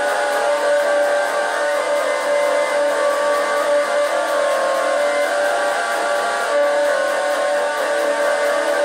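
Music: an electric guitar played in steady sustained chords, an instrumental passage of a song.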